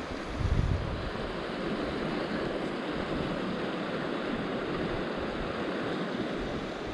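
Steady rush of flowing river water, with a brief low buffet of wind on the microphone about half a second in.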